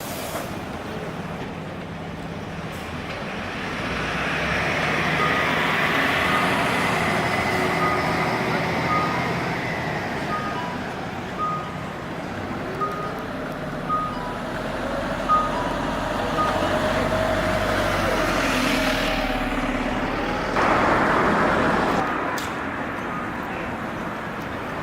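Bus turn-signal chime beeping at a steady pace of a little over one beep a second, for about ten seconds, over the bus's running engine and road noise. The engine note rises and falls, and a loud rush of noise comes about 21 seconds in.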